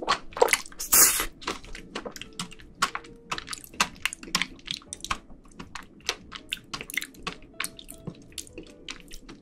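Close-miked mouth sounds of eating a soft, jelly-like pudding from a spoon: a quick run of wet smacks and squelches with many small clicks, and a louder wet smack about a second in.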